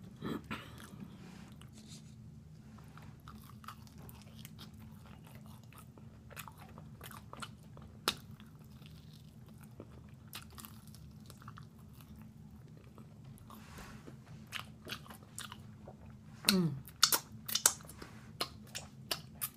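A person chewing and biting crispy fried food, soft chewing with scattered crunches, then a run of loud crunchy bites in the last few seconds.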